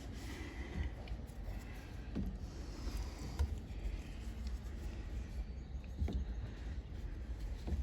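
Scattered light knocks and rubbing from a plastic installation tool working a rubber number-board gasket into its locking seat, over a steady low rumble.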